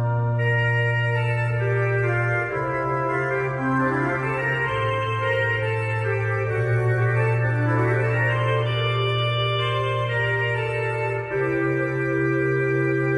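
Pipe organ playing French Baroque music: a slow line over held bass notes that change every couple of seconds, with ornamented melody notes above.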